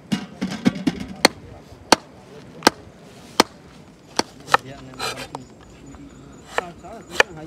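Steel cleaver slicing an onion on a plastic cutting board: a run of sharp knocks, at first about one every 0.7 s, then more unevenly.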